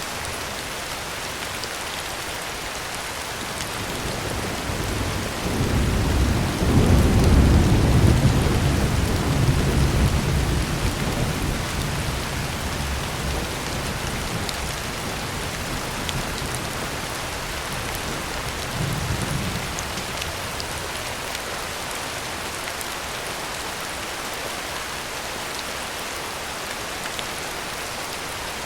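Steady heavy rain on a tin roof. About five seconds in a roll of thunder swells, peaks and fades over several seconds, and a shorter, fainter rumble follows later.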